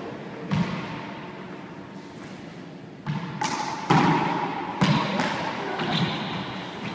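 A rubber handball slapped by hand and smacking against the walls and floor of an enclosed court, each hit echoing. One hit about half a second in, then a quick run of several hits from about three to six seconds in.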